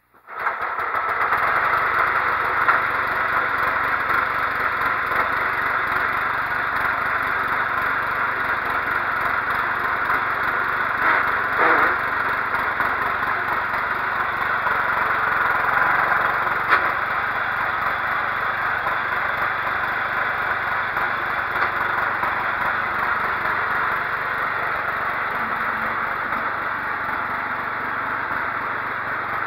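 Cub Cadet 1330 lawn tractor's engine running steadily, with a few brief clicks.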